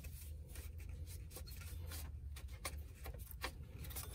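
Faint rubbing and light clicks of a rubber ribbed A/C belt and a plastic zip tie being handled and pressed against the pulleys, over a low steady hum.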